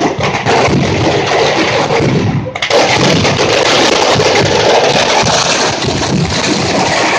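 Dense barrage of firecracker explosions, so rapid that the bangs merge into a continuous crackling rattle. It dips briefly about two and a half seconds in, then resumes louder and sharper.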